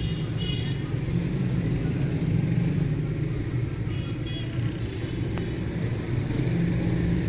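Steady low rumble of a running motor vehicle engine, with faint background voices.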